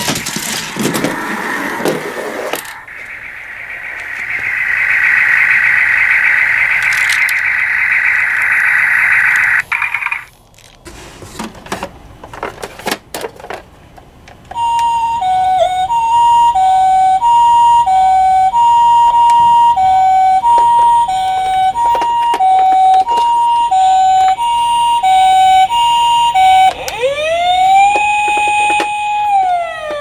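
Toy ambulance's electronic siren, set off by pressing its sound buttons: a Japanese-style two-tone hi-lo "pee-po" ambulance siren alternating steadily, then near the end a wailing siren that rises, holds and falls. Before that, a steady rough rolling noise stops about ten seconds in, followed by a few clicks of handling.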